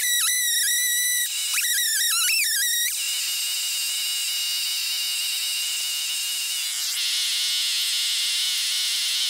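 Stihl MS 661 two-stroke chainsaw on a Granberg Alaskan mill running at high revs through the end of a slabbing cut, its pitch wavering under load. About three seconds in, the note changes suddenly to a steadier pitch that holds.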